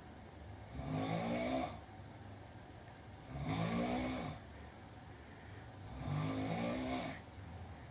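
Loud snoring: three long, rattling snores, each about a second, coming roughly every two and a half seconds, with quieter breathing between them.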